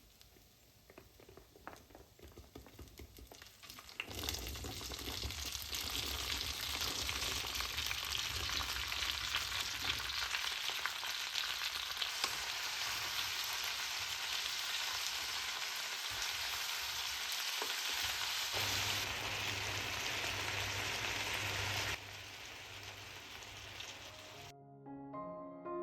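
Food sizzling in hot oil in a pan, at first soft, then loud and steady from about four seconds in, dropping away suddenly a few seconds before the end. Soft piano music begins just before the end.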